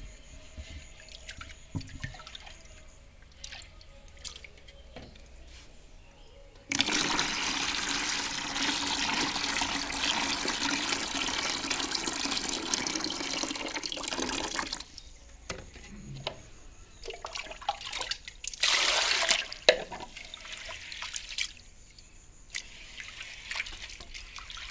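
Water poured from a bowl of soaked urad dal into a plastic tub, washing off the loosened husks. There is a steady pour lasting about eight seconds, then a shorter pour or splash of about a second. Between them come small clicks and swishes of a hand rubbing the wet lentils in the bowl.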